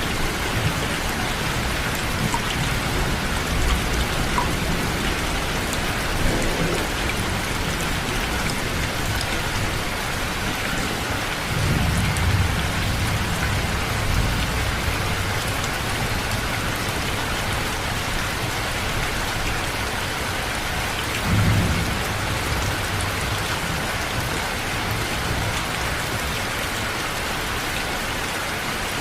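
Steady rainfall, with low rolls of thunder about twelve seconds in and again about twenty-one seconds in.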